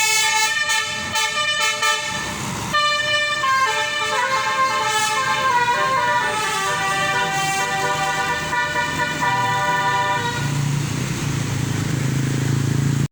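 Tour bus's multi-tone 'telolet basuri' horn playing a tune, several pitched notes sounding together and stepping from note to note. Near the end the horn fades and the bus's engine rumbles louder as it passes.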